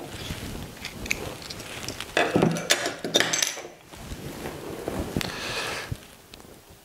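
Beer pouring from a glass bottle into a stemmed tulip glass, then the bottle and glass handled on a table, with several knocks and clinks about two seconds in.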